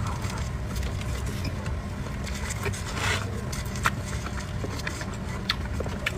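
Close-miked eating of a cream-filled pastry: soft chewing with sharp wet mouth clicks every second or two, over a steady low hum.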